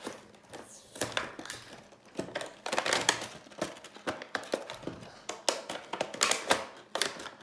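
Toy packaging being handled and opened by hand: an irregular run of crinkles, clicks and taps.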